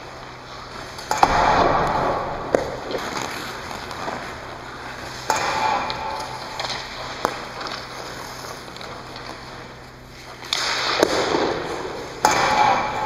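Hockey skates scraping and carving on the ice in four sudden hissing bursts, with several sharp knocks of stick and puck from wrist shots, echoing in an empty rink.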